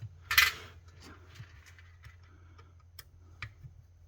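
Light clicks of tools and small metal parts being handled, with a short scrape about a third of a second in and a few sharp ticks later on.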